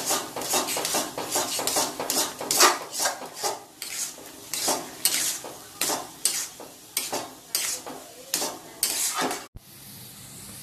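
A steel spoon scrapes and knocks rapidly against a steel kadai as freshly added semolina is stirred into simmering water for upma, kept moving so it doesn't form lumps. Near the end the sound cuts suddenly to a steady hiss from chickpeas roasting in a small pan.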